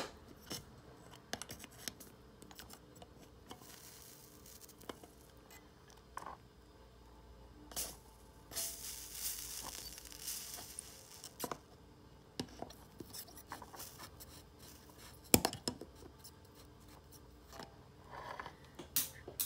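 Pliers and a soldering iron working on a metal slot-car chassis while desoldering its tubes: scattered light clicks and scrapes of metal on metal, a brief hiss of about two seconds near the middle, and a sharp click about two-thirds of the way through.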